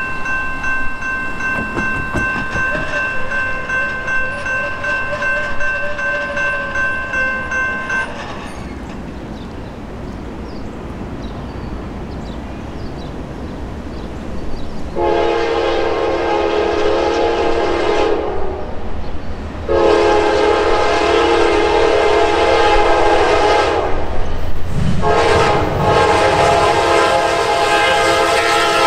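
A grade-crossing warning bell rings for about the first eight seconds, then stops. About halfway through, a Norfolk Southern GE D9-40CW diesel locomotive approaching the crossing sounds its horn in three long blasts, the last running on to the end, over the rising rumble of the oncoming grain train.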